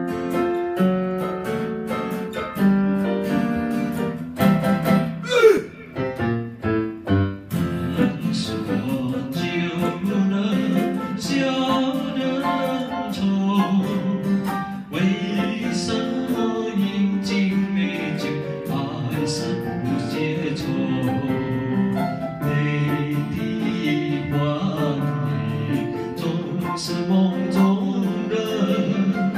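Digital piano and acoustic guitar playing a slow pop ballad, accompanying a man singing into a microphone.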